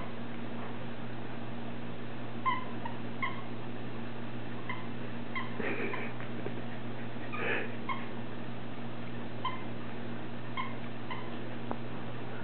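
A Pembroke Welsh Corgi puppy and an American Eskimo dog playing tug over a plush toy: about ten short, high squeaks come at irregular gaps of roughly a second, with two rougher, noisier sounds around the middle.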